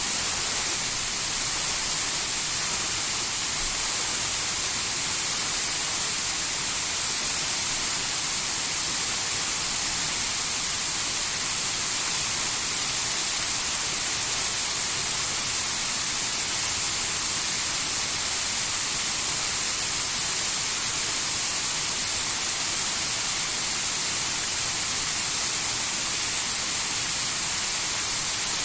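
Waterfall pouring steadily into its pool: an even, unbroken hiss of falling water.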